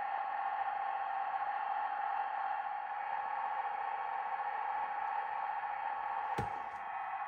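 Bachmann Class 158 DMU model's DCC sound decoder playing diesel engine sound through its small onboard speaker: a steady hum, with a short click about six seconds in.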